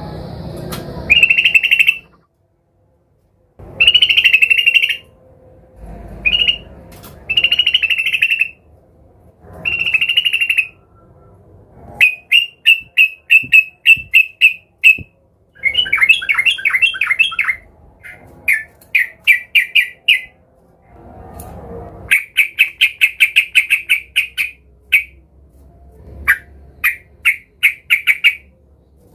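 Yellow-vented bulbul (trucukan) giving agitated, aggressive chattering calls, as a bird does when challenging a rival. The calls come in loud bursts and in fast trains of sharp repeated notes, with short pauses between them.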